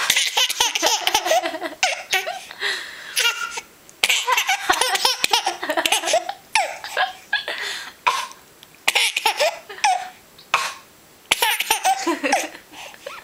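A baby laughing in a run of bursts, giggles and belly laughs, with short pauses between them.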